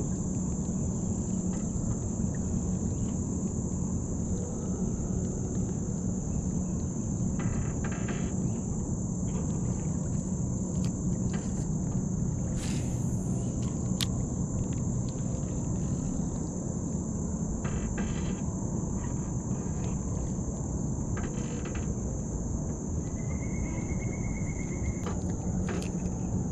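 Steady high-pitched insect chorus, like crickets, over a steady low hum and rumble, with a few faint clicks and a short buzzy trill near the end.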